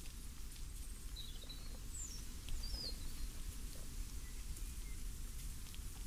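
Steady breeze with a light pattering rustle of leaves, and a few short, high bird chirps between about one and three seconds in.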